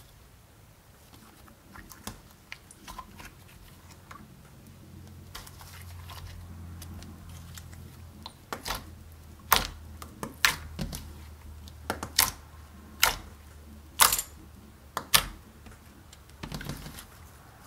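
Clear slime being squeezed and poked by hand, giving irregular sharp clicking pops, quiet at first and coming thick and fast from about halfway on.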